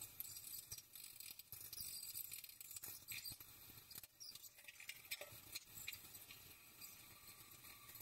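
Near silence, with faint scattered ticks and crackles of food sizzling quietly in a frying pan on a gas burner.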